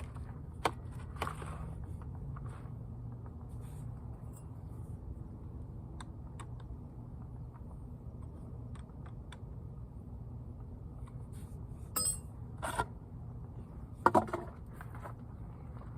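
Scattered clicks, snaps and scrapes of hand tree-trimming work over a steady low hum, with a few sharper snaps about 12 and 14 seconds in.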